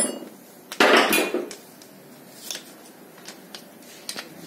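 Metal engine parts and hand tools clinking and clattering during an engine teardown, with one loud clatter about a second in and a few light clicks after.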